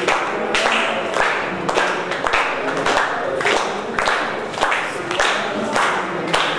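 A group of people clapping in time, about two claps a second, keeping the beat for a dance, with singing underneath.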